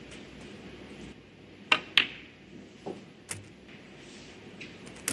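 Snooker balls clicking: two sharp clicks about a quarter of a second apart around two seconds in, then a few fainter taps.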